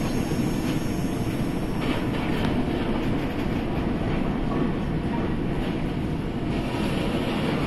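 Düsseldorf Airport SkyTrain, a suspended monorail, running along its elevated track at steady speed, heard from inside the car as a steady low rumble.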